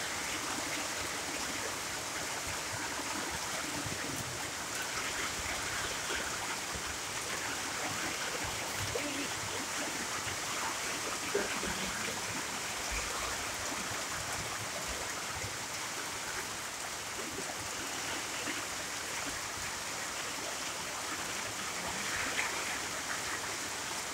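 Steady rain falling: an even hiss with a few scattered small ticks of drops.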